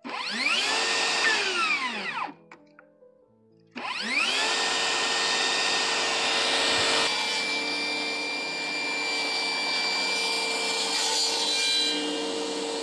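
DeWalt FlexVolt 60V Max brushless cordless table saw motor switched on, spinning up and winding down after about two seconds, then started again and running at steady speed. From about seven seconds in the sound turns rougher as the blade cuts into a sheet of OSB.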